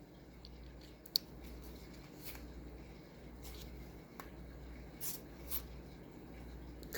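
Trading cards being handled: faint rustling and sliding of card stock, with a few light clicks, the sharpest about a second in, over a low steady hum.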